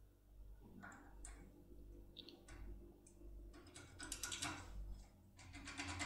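Faint small metallic clicks and taps from a tin-foil impression lock pick being handled and worked in a euro-profile lock cylinder, sparse at first, then a quicker run of clicks about four seconds in and a fast, steady clicking near the end.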